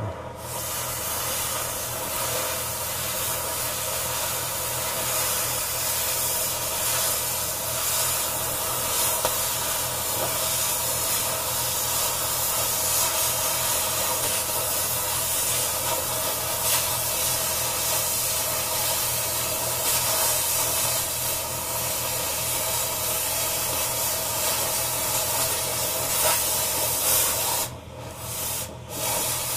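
Oxy-fuel cutting torch giving a loud, steady hiss as its cutting-oxygen jet burns through thick steel on an old hydraulic cylinder rod-end pin support. Near the end the hiss drops out twice, briefly.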